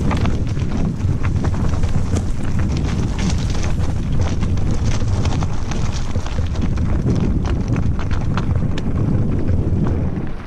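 Mountain bike riding fast over a loose, stony trail: heavy wind buffeting on the microphone, with tyres crunching over rocks and frequent clattering knocks from the bike.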